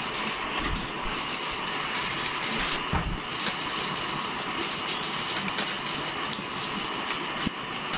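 Continuous rustling and crinkling of an artificial Christmas tree's plastic branches being handled and spread, with many small clicks.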